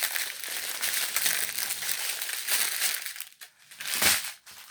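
Small plastic bags of diamond painting drills crinkling as they are handled and sorted, with a brief lull a little after three seconds and a louder crinkle about four seconds in.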